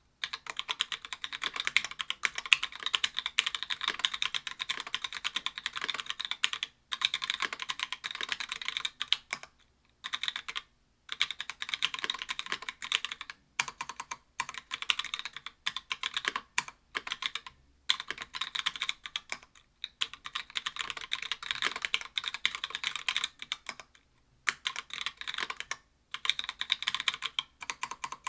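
Continuous typing on a mechanical keyboard with stock Gateron Yellow linear switches (60 g) in an aluminium plate under GMK keycaps: fast runs of smooth, clack-free keystrokes broken by a few brief pauses.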